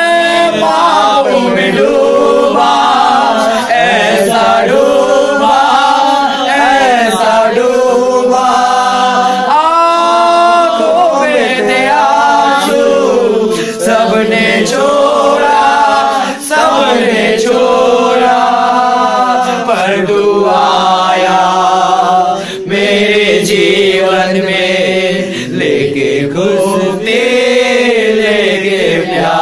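A group of voices singing a Hindi Christian worship song together, without instruments.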